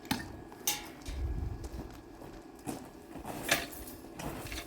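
A handful of sharp knocks and clanks, about five, irregularly spaced, with a brief low rumble about a second in.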